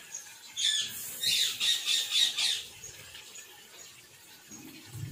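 A bird squawking: a harsh burst of rapid, high-pitched calls lasting about two seconds, starting just under a second in.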